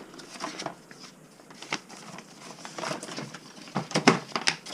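Plastic packaging rustling and crinkling with scattered clicks and knocks, loudest about four seconds in, as a hair dryer and its plastic strap are handled out of a moulded plastic tray.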